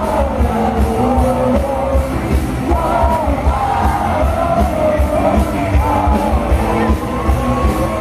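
Live Christian worship band playing loudly through a PA, with several singers singing over a steady drum beat.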